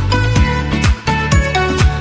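Upbeat background music with a steady beat of deep kick drums, about two a second, over sustained melodic notes. The music cuts out briefly about halfway through.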